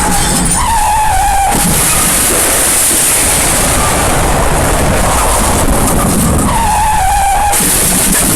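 Edited, distorted version of the MGM elephant smash sound effect: a dense, loud wash of noise with a short squealing tone about half a second in and again around seven seconds in.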